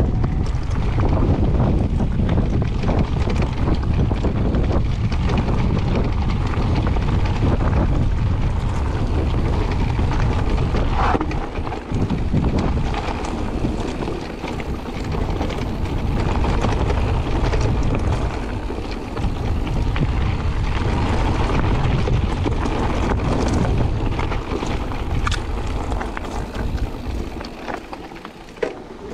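Wind buffeting the microphone and the rumble of mountain bike tyres rolling over a gravel trail, with scattered knocks and rattles from the bike over the bumps. It gets quieter near the end.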